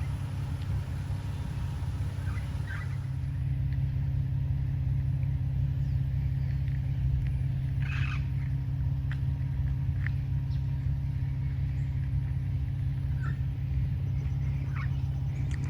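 A few short, scattered parrot calls, the harshest about eight seconds in, over a steady low mechanical hum.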